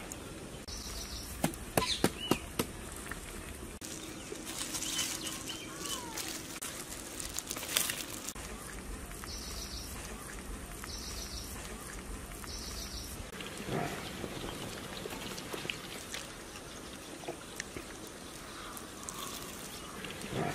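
Outdoor ambience with a bird giving short high trilled calls several times, a couple of seconds apart in the middle. A few sharp clicks and knocks of handling, loudest about two seconds in.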